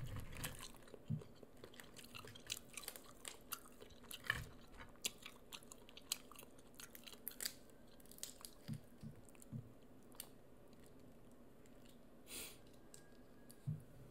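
Boiled crawfish being peeled and eaten: faint, scattered clicks and crackles of shell breaking, with chewing.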